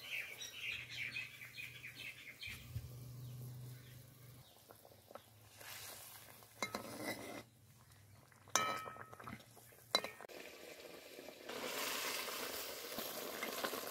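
Curry gravy bubbling in a metal kadai as fried banana-flower and egg patties are slipped in, then a metal ladle stirring and scraping in the pan, with a ringing clink of ladle on pan past the middle and a sharp click soon after.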